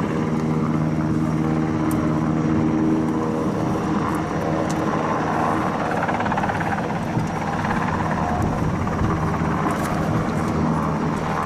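An engine runs steadily with an even droning hum. A few light clicks and knocks sound over it.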